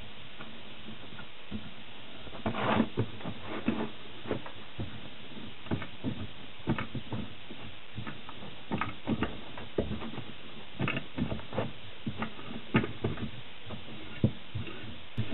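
Hand tapping threads: a T-handle tap wrench being turned in a hole in a metal bar held in a machine vise, giving irregular metallic clicks and scrapes, some in quick clusters.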